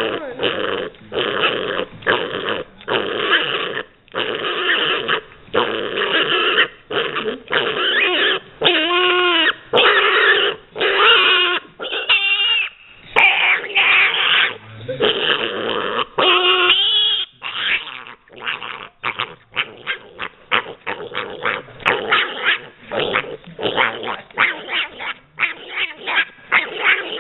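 Pet pig squealing and growling over and over while eating potato chips. Some calls swoop up and down in pitch, and in the last third the calls come shorter and faster.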